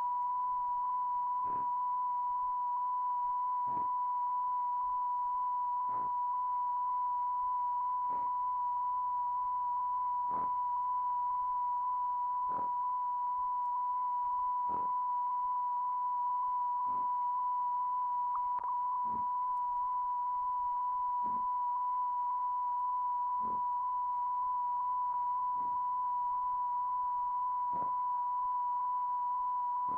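Steady electronic test tone at one unchanging pitch, with faint clicks about every two seconds.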